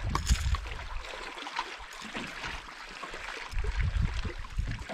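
Small waves lapping against a fishing boat, with gusts of wind rumbling on the microphone near the start and again near the end, and a few light clicks as a smallmouth bass is unhooked.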